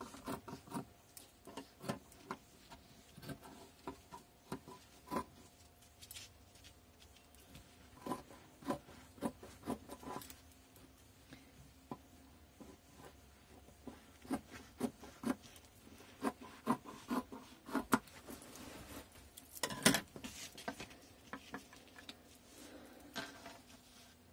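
Scissors cutting through a thick woven fabric in short, irregular snips, with rubbing and rustling as the fabric and paper pattern are handled.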